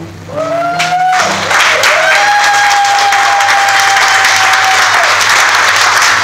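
Audience applause and cheering at the end of an acoustic guitar song. The applause swells about a second in, and one voice holds a long rising cheer over it.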